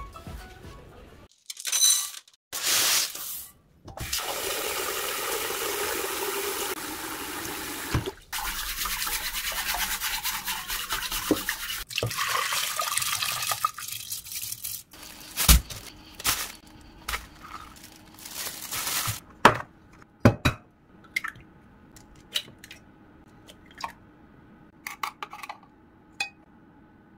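Kitchen prep sounds: a long stretch of water running while rice is rinsed and tipped into a rice-cooker pot, then scattered clinks and taps of a metal spoon against a glass measuring jug as eggs are mixed with sugar and seasonings.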